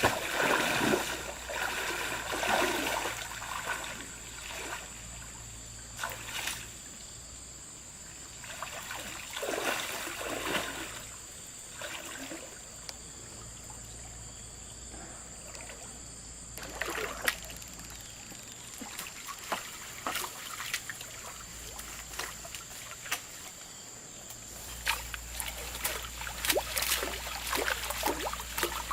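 River water trickling, with irregular louder splashes every few seconds as the water is disturbed. A faint steady high-pitched whine sits underneath.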